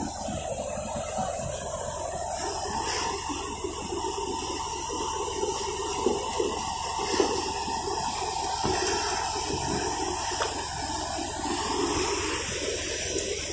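Paddy thresher running steadily as rice straw is fed through it: a constant machine hum under a rushing hiss of threshed grain and chaff pouring out.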